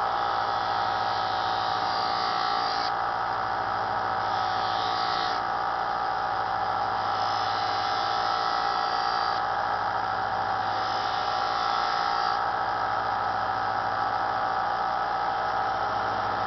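Small bench belt sander's electric motor running steadily with a muslin buffing wheel, as a kitchen knife edge is pressed to the compound-loaded wheel in about four passes, each adding a hiss. The buffing removes the wire edge left by the sanding belt, polishing the knife to a razor edge.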